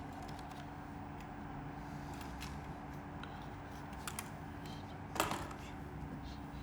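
Light clicks and taps of items being handled during an unboxing, with one louder knock about five seconds in, over a steady low hum.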